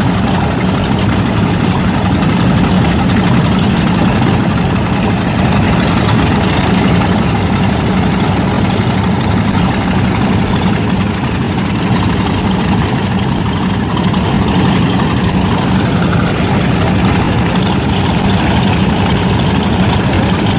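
Radial engine of a WWII-era warbird running steadily at idle: a loud, even rumble that does not change in pitch or level.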